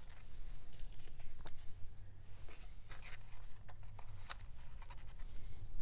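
Paper cutouts rustling and crinkling as they are handled and slid into a glossy folio pocket page, a run of soft, irregular clicks and rustles.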